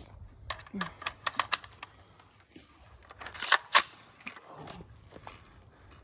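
Sharp mechanical clicks and clacks from an AR-15 rifle being handled and readied to fire. A quick string of light clicks comes in the first second and a half, then two louder clacks about three and a half seconds in.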